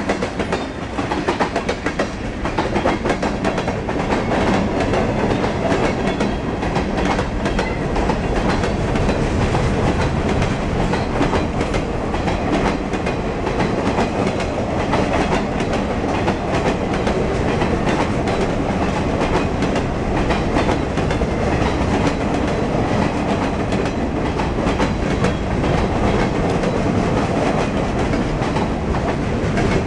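Freight train of tank cars, boxcars and flatcars rolling past: a steady rumble with a rapid clickety-clack of steel wheels on the rails.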